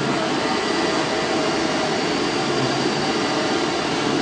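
Steady machine noise from a DCZ70 flatbed oscillating-knife cutting table running, an even rushing hum with no breaks.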